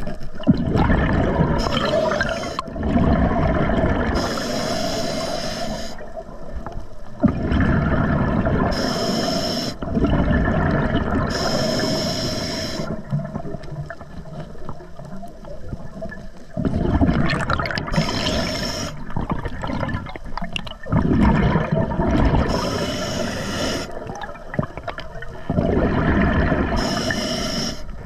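A scuba diver breathing through an Atomic regulator: each inhalation a short hiss of air through the demand valve, each exhalation a low, gurgling rush of bubbles, repeating about every four seconds.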